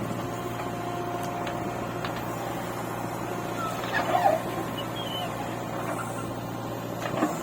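Diesel engine of a backhoe loader or tractor running steadily, with a few short high squeaks about four seconds in.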